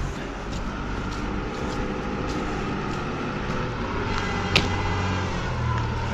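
A vehicle engine running steadily, with one sharp click about four and a half seconds in.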